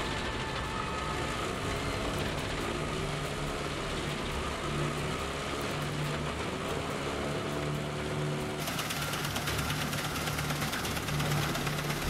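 Heavy diesel machinery running at a Gandini CT50 drum wood chipper being fed logs: a steady engine drone whose note rises and falls again and again. About two-thirds of the way through, the sound suddenly turns brighter and harsher.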